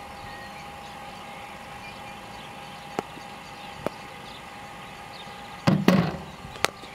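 Two light knocks of a cricket bat tapped on the pitch at the crease over a faint steady hum. About a second before the end comes a louder burst of noise lasting about half a second, then a single sharp crack.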